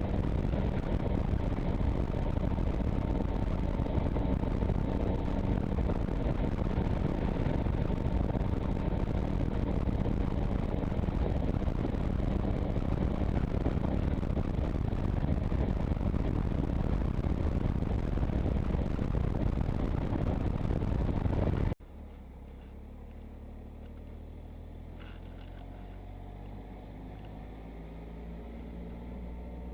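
Motorcycle riding at speed, its engine a faint steady tone under loud rushing wind and road noise on the microphone. About 22 seconds in, the sound cuts abruptly to a quieter take where the engine's note climbs gradually as the bike accelerates.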